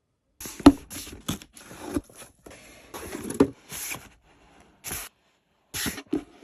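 Crinkling, scraping handling noises in short irregular bursts, with a sharp knock about half a second in.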